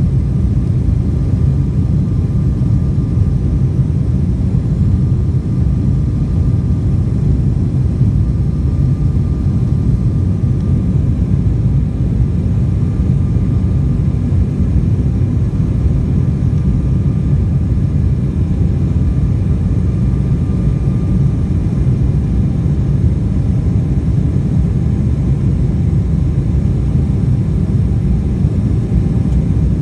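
Jet airliner cabin noise in flight, heard from inside the cabin: a steady low rumble of engines and airflow, with a faint thin whine that comes and goes.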